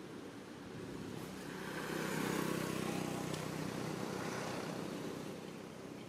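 A motor vehicle driving past: its engine drone swells over a couple of seconds, peaks about two and a half seconds in, then fades away.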